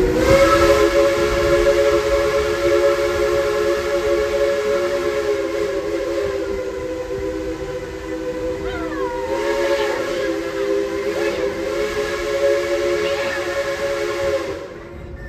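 Steam locomotive Engine 190's chime whistle sounding one long blast of several notes together over a hiss of steam. It eases a little partway through, then cuts off sharply near the end.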